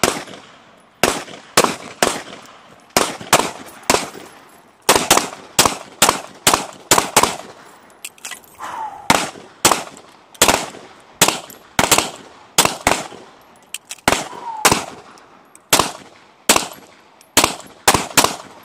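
Pistol shots fired in quick strings, roughly two or three a second, dozens in all, each crack followed by a short echo across the range.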